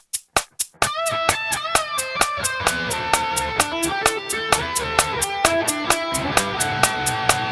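Distorted electric guitar, an Ibanez JPM, playing a melodic Dorian lead lick at original tempo, with held notes and bends. Under it runs a drum backing track with steady ticks. The lick starts about a second in, after a quick run of count-in clicks.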